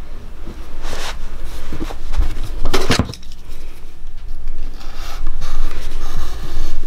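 Hollow clay forms being handled against each other, with two knocks about one and three seconds in, the second louder, then a pointed tool scratching small marks into the clay.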